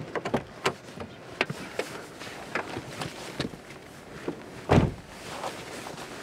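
A person opening a car door by its handle and climbing into the seat with a backpack: handle clicks, knocks, and parka and bag rustling, with one heavy thump about five seconds in.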